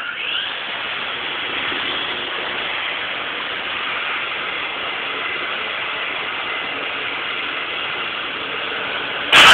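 Small battery-powered RC toy helicopter running, its electric motor and spinning rotors giving a steady whir. A sudden loud noise comes right at the end.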